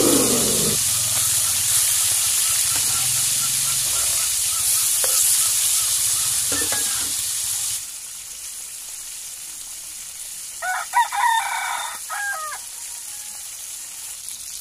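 Whole fish frying in hot oil in a wok, a loud steady sizzle that cuts off suddenly about eight seconds in. A rooster crows about three seconds later.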